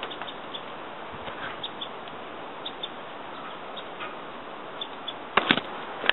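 Steady hiss of light rain in the woods with scattered short high chirps and ticks. About five seconds in, a quick cluster of loud knocks from the camcorder being handled and swung, with one more knock at the very end.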